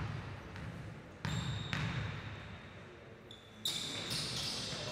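Basketball bouncing on a gym court: a couple of sharp thuds about a second in, echoing in a large hall, with a high steady squeal coming in near the end.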